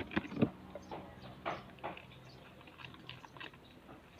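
Glue-and-activator slime being mixed as it starts to set, giving irregular soft sticky clicks and smacks.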